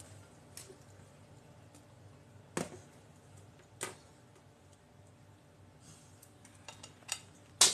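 A few short knocks and clinks of a stemmed drinking glass handled on a countertop: two light clicks as it is picked up, then a cluster near the end as it is set back down, the last one the loudest. Quiet room tone between.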